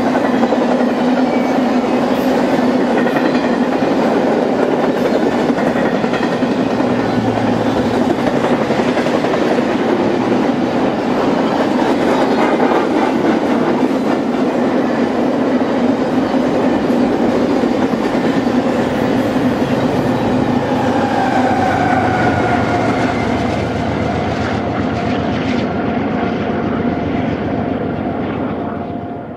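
Double-stack container train's loaded well cars rolling past close by: steady wheel-on-rail rumble and rattle. About two-thirds of the way through, a thin whine that slides down in pitch joins it.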